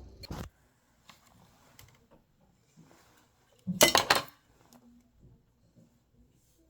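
Dishes and cutlery clinking: a sharp clink near the start, a few light taps, then a loud clatter of several quick strikes about four seconds in.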